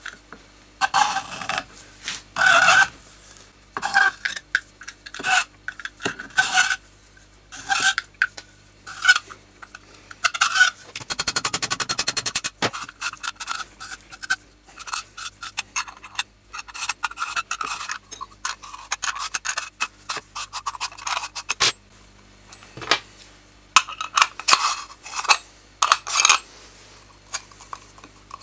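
Metal clinking and scraping of a steel spanner working the nut at the centre of an old mining lamp's reflector housing, in short irregular strokes, with a quick run of fine clicks about eleven seconds in.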